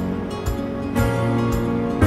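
Background acoustic folk instrumental music, with plucked notes struck about every half second to a second over held tones.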